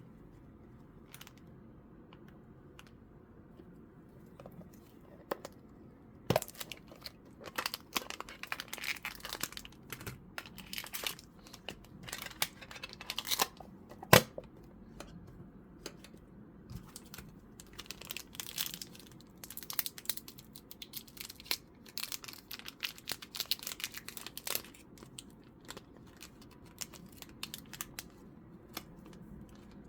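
Foil booster-pack wrapper being crinkled and torn open, starting about six seconds in, with scattered rustles and clicks; one sharp click about 14 seconds in is the loudest.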